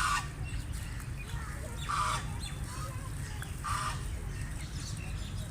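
Wild ducks calling: three loud, harsh calls, one at the start, one about two seconds in and one near four seconds, with fainter calls between, over a steady low rumble.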